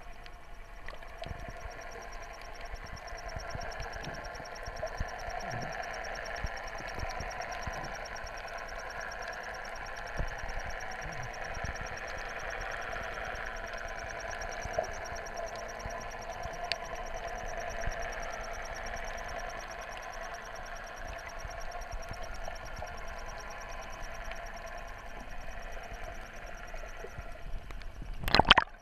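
Underwater noise picked up by an action camera in its waterproof housing: a steady hum with scattered faint clicks, and a brief loud crackling burst just before the end.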